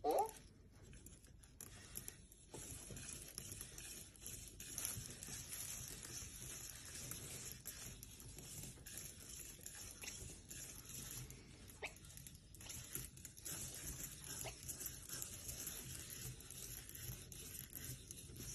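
A short rising chirp right at the start, then faint hiss with light scattered ticks and taps, of the kind EMO desktop robots make as they chirp and shuffle about.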